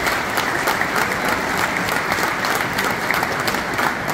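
Large audience applauding: many hands clapping at once in a dense, steady patter.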